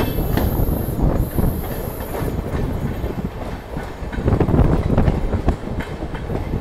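Moving Indian Railways passenger train heard from an open coach window: a steady running rumble with the wheels clacking over rail joints, loudest about four to five seconds in.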